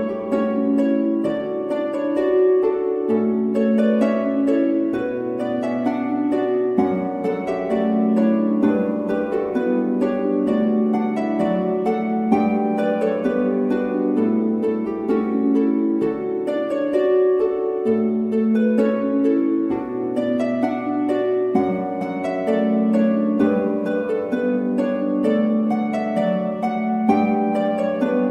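Instrumental background music of quickly plucked string notes over low bass notes that change every couple of seconds.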